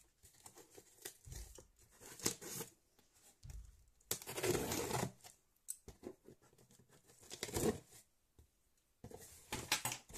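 A cardboard parcel being opened by hand: its packaging tearing and rustling in several separate bursts, the longest about four seconds in.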